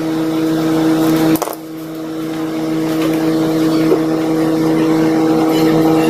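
A steady mechanical hum of fixed pitch with a faint hiss of noise over it. The noise drops away about a second and a half in while the hum carries on.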